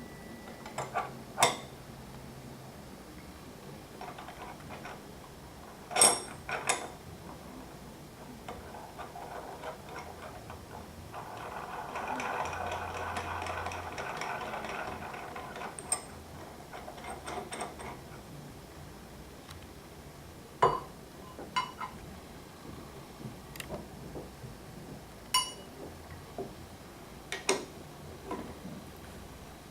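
Metal tools and bearing parts of a BB86 bottom bracket clicking and clinking during bearing replacement: a dozen or so separate sharp knocks spread out, with a few seconds of steadier noise in the middle.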